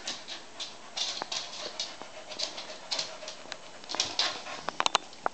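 A dog humping a person's leg: irregular short scuffling, breathy sounds, a few every second, with a quick run of sharp clicks near the end.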